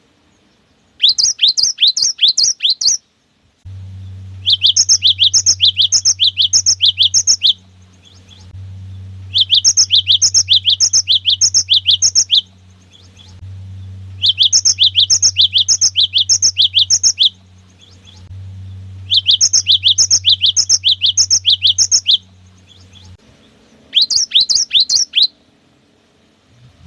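Cinereous tit (gelatik batu) singing its repeated 'wucit wucit' phrase: six bouts of rapid, high, sweeping two-part notes, each bout lasting two to three seconds with short pauses between. A steady low hum runs under most of it.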